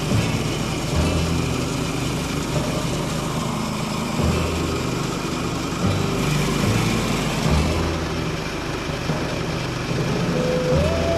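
Portable band sawmill running steadily, its small gas engine under load as the band blade cuts through the log.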